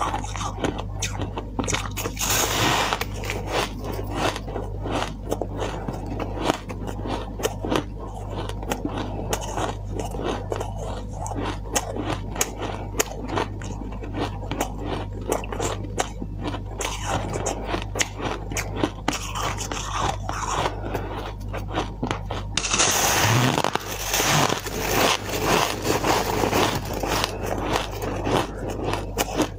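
Soft white ice crunching as it is bitten and chewed close to the microphone, mixed with the crackle of fingers scraping and crumbling ice in a silicone bowl, over a steady low hum. Near the end the crunching grows denser and louder.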